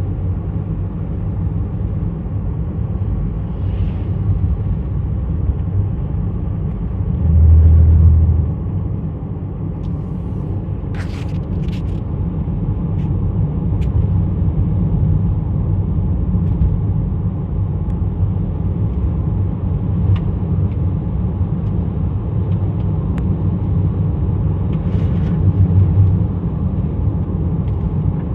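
Steady low rumble of a running vehicle, with a brief louder swell about eight seconds in and a few faint clicks.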